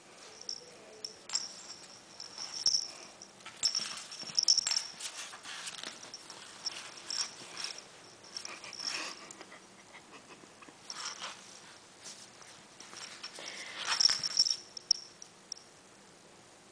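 Three-month-old beagle puppy snuffling and scuffling as it squeezes under a couch, in irregular bursts that are loudest a few seconds in and again near the end.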